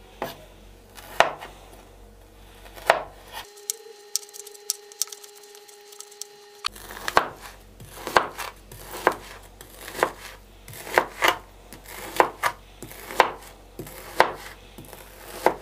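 Chef's knife chopping through frozen chicken liver onto a plastic cutting board. A few separate chops, a pause of about three seconds, then a steady run of about two chops a second.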